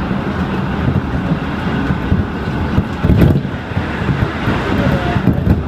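Train running along the track, heard from inside the carriage: a steady low rumble with a brief louder surge about three seconds in.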